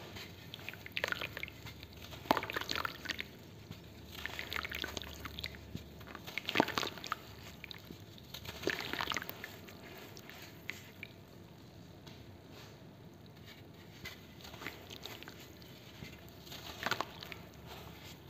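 A block of pressed sand crushed and crumbled by hand over water, giving gritty crunching and crackling in several separate bursts, with wet crumbs dropping and splashing into the water.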